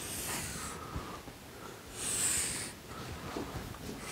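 Chalk drawing long lines on a blackboard: several strokes, the loudest about two seconds in.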